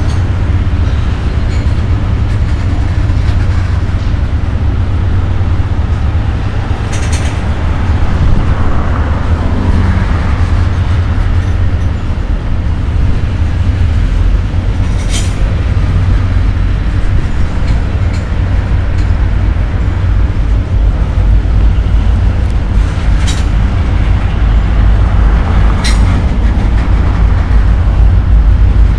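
Freight cars rolling past on the rails: a loud, steady, heavy low rumble of steel wheels on track, broken four times by brief sharp high-pitched sounds.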